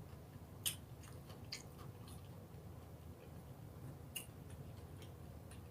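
A person quietly chewing food, with a few sharp little mouth clicks, about a second, a second and a half, and four seconds in.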